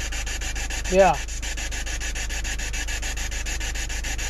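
A steady hiss that pulses rapidly and evenly, over a low steady hum, with a short spoken "yeah" about a second in.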